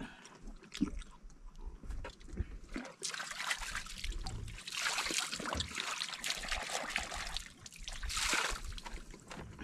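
Water sloshing and splashing against a small wooden boat's hull in uneven swells, louder about three seconds in and again near the end, with scattered light clicks and knocks.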